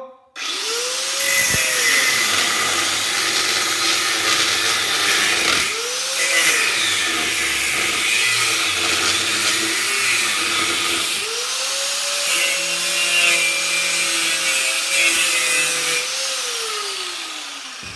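Corded angle grinder with a cutting disc cutting through a metal heat sink into its steel part. The motor whine rises as it spins up, dips twice as the disc bites, runs steady, then winds down over the last two seconds.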